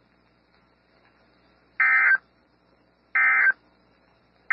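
Emergency Alert System End of Message (EOM) data bursts: two short bursts of warbling two-tone digital SAME data about 1.3 s apart, with a third starting at the very end. They mark the end of the alert.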